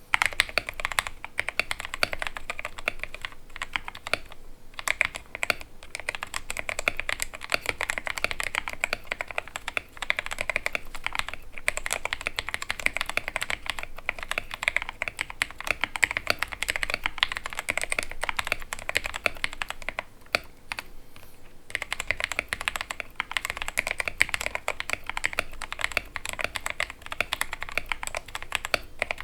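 Fast continuous typing on a Royal Kludge RK68 mechanical keyboard with lubed RK Brown tactile switches in a steel plate, tape-modded and foam-dampened, with PBT XDA keycaps: dense key clacks with an occasional deeper spacebar thock, pausing briefly twice.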